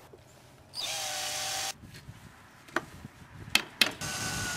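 Cordless drill-driver driving screws into a plywood box. The motor runs twice: one steady run of about a second, then a few sharp knocks, and a second run starting near the end whose pitch sinks slightly.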